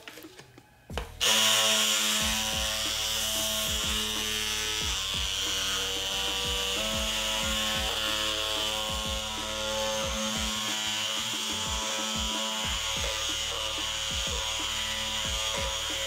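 Cordless brushless oscillating multi-tool with a triangular sanding pad, switched on about a second in and running steadily as it wet-sands a plastic tail light lens.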